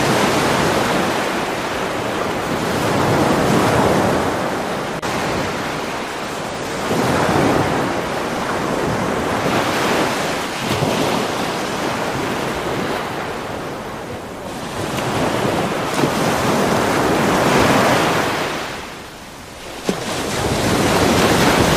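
Ocean surf: waves washing in and falling back every few seconds, used as the masking sound of a subliminal track.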